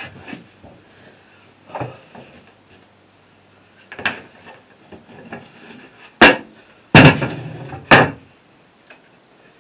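Knocks and bangs of a wooden battery-box lid being handled and lifted off: a few light knocks, then three loud bangs close together about two-thirds of the way in.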